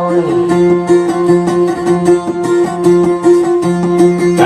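Plucked string instrument playing quick repeated notes over a steady drone: an instrumental passage of Maguindanaon dayunday music.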